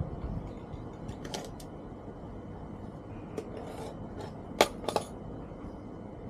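A few short sharp clinks and taps of hard objects being handled, the loudest a little past the middle with two more close behind, over a steady low background noise.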